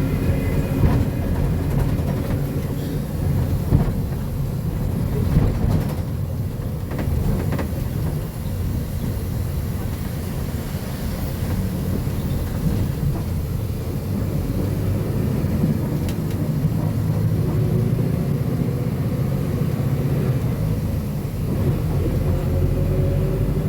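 Diesel engine of a Marcopolo Sênior Midi bus on an Agrale MA 15.0 chassis running, a steady low drone, with a few short knocks about five to seven seconds in.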